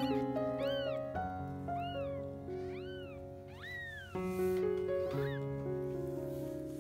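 Newborn golden chinchilla British shorthair kitten mewing: about five short, high-pitched cries, each rising and then falling in pitch, over background piano music.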